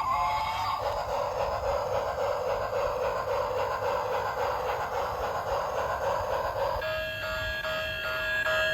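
Battery-operated toy train's sound chip playing an electronic steam-train chugging effect. Near the end it switches to a repeating electronic bell-like tone.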